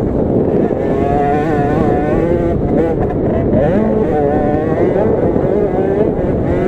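50cc two-stroke minibike engine running hard under the onboard camera, its note rising and falling as the rider works the throttle over the rough track.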